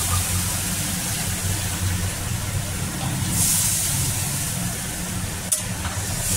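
Hot oil and freshly added water sizzling in a steel kadai of hog plum pieces, over a steady low hum, with a stronger hiss a little past the middle. A sharp click near the end as the metal spatula meets the pan.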